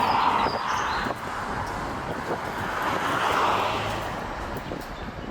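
Road traffic passing: two swells of vehicle noise, one at the start and one about three seconds in, with a few short bird chirps near the beginning.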